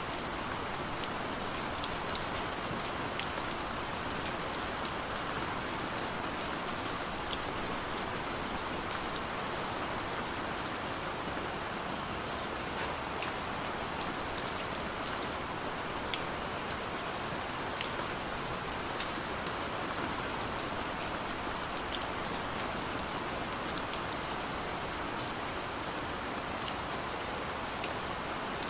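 Gentle steady rain falling, a continuous hiss with many small scattered drop ticks.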